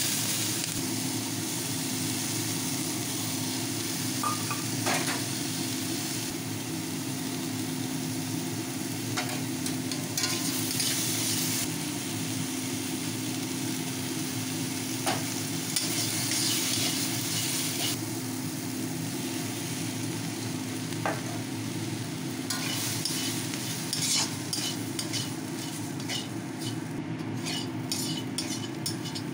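Vegetables sizzling in a hot pan while a spatula stirs them, with occasional scrapes and taps of the spatula on the pan. In the last few seconds, as oats are mixed in, the scraping and clicking comes faster.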